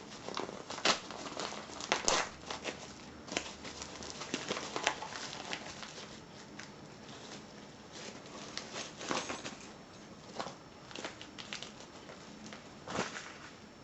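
Packaging being opened by hand: irregular crinkling, crumpling and tearing of the wrapping, with scattered sharp crackles.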